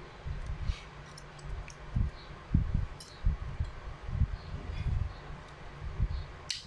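Irregular handling bumps and a few sharp metallic clicks as a fork is pressed against parts of a Glock 17 Gen 4 slide to free them, with one clear click about three seconds in and another near the end.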